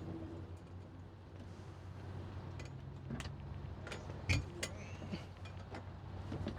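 Boat engine idling with a steady low hum, with scattered clicks and knocks over it and a sharper knock about four seconds in.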